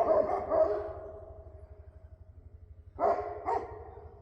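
Livestock guardian dogs barking in quick runs of about three barks a second, raising the alarm at a fox near the barnyard. The barking trails off about a second in into a fading drawn-out note, then starts again about three seconds in.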